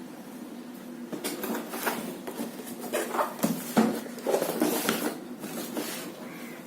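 Cardboard and plastic packaging of a laptop box being handled and opened: irregular rustling with a string of small knocks and clicks, the loudest knock about halfway through.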